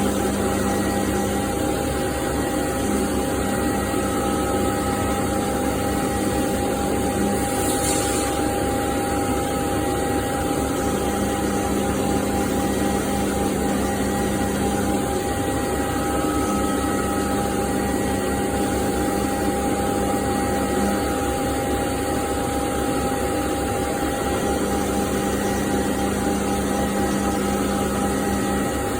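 CNC machining centre cutting SS400 steel with a carbide tool: a steady machine whine with a fast fine chatter beneath it, and a lower hum that comes and goes every few seconds as the machine works through its passes.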